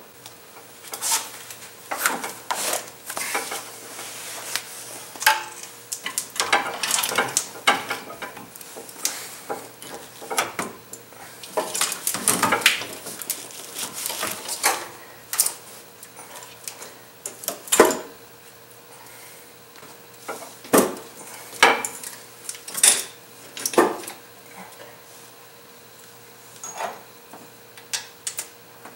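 Irregular metal clinks and knocks from a cylinder head being set onto a Dodge 4.7 L engine block and bolts being started by hand to hold it in place, with one sharper knock a little past halfway.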